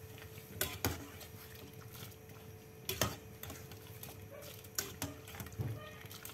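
Metal wire skimmer clinking against the aluminium pot as broccoli is stirred and lifted in boiling water: a handful of sharp knocks spaced unevenly, the loudest about three seconds in.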